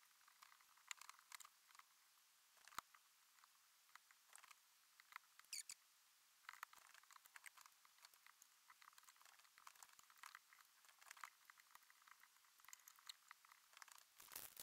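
Faint, irregular small clicks and scrapes of a knife working on a cutting board as venison backstrap is trimmed, with a slightly louder cluster of clicks near the end.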